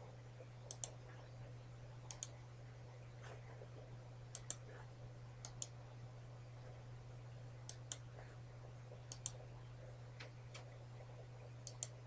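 Computer mouse clicking: about eight double clicks, each a press and release in quick succession, spaced a second or two apart, over a steady low hum.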